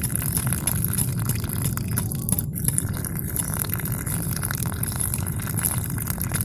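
Water from a homemade water pump's outlet pipe pouring steadily into a muddy puddle, splashing and trickling.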